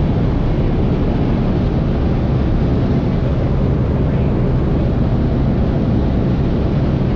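Steady drone of a skydiving jump plane's engine and propeller, heard from inside the cabin in flight, with a constant low hum under a wide rushing noise.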